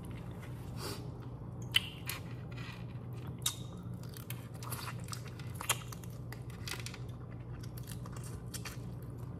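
Close-miked chewing and biting of broiled head-on shrimp: scattered sharp crunches and clicks from the mouth, over a steady low hum.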